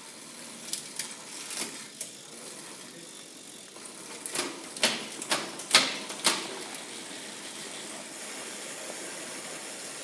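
Scattered, irregular sharp metallic clicks and clinks of hand tools working on a bicycle, over a steady hiss, with a denser run of clicks in the middle.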